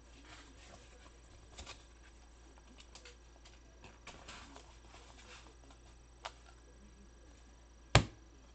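Soft rustling and small clicks of trading cards and pack wrappers being handled, then one sharp knock about eight seconds in.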